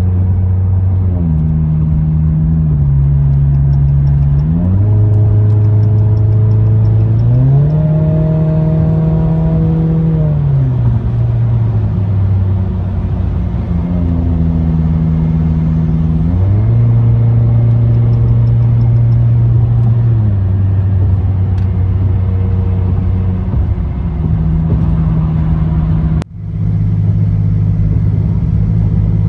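Chrysler 200's 2.4L MultiAir four-cylinder, with headers, a resonator and no mufflers, heard from inside the cabin at highway speed: a low exhaust drone whose pitch steps down and up several times as the revs change. The sound cuts out briefly near the end.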